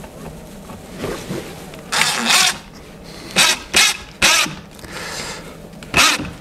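Cordless drill/driver run in several short bursts while driving screws through a wooden drawer front: one longer burst about two seconds in, three quick ones shortly after, and another near the end. The drill's clutch setting is too low to drive the screws fully home.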